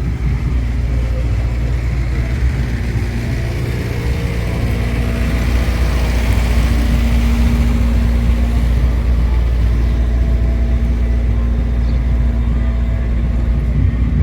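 Steady low rumble of road traffic, with a vehicle's engine noise swelling louder about five seconds in and easing off a few seconds later.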